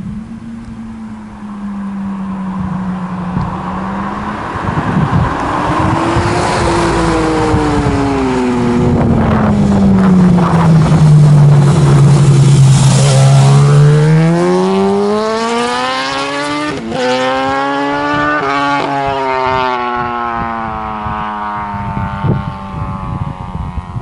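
Yamaha R1 inline-four sport motorcycle approaching and passing close by. Its engine note drops in pitch as it goes past, then climbs again under hard acceleration away, with two quick upshifts, before fading.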